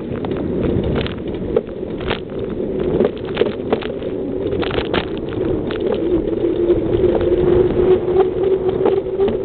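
Bicycle being ridden along a paved road: a steady hum with frequent rattling clicks, getting gradually louder toward the end.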